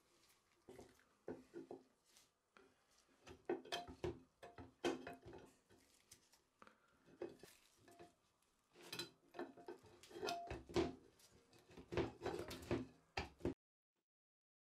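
Metal parts of a century-old potato chip cutter being handled and taken apart: irregular clinks, knocks and scrapes of iron pieces against each other and the table. The sound cuts off abruptly near the end.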